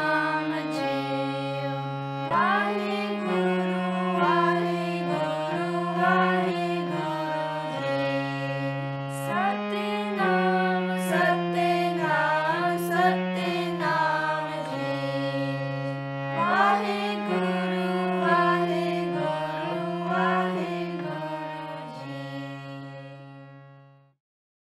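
Music under end credits: a melody with sliding notes over held low notes that change every second or two, fading out near the end.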